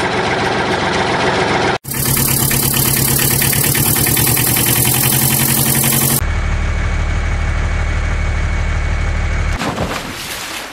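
A running engine in several abruptly joined segments. There is a short dropout just before two seconds in. A deeper, steadier engine hum starts about six seconds in, and the sound fades out near the end.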